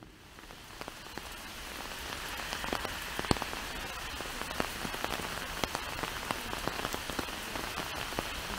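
Steady rain falling, with many separate drops ticking sharply close by. It fades in over the first couple of seconds.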